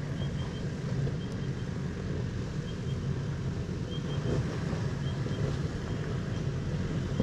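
Four-wheel-drive vehicle's engine running with a steady low rumble, with faint short high chirps in groups of two or three about once a second.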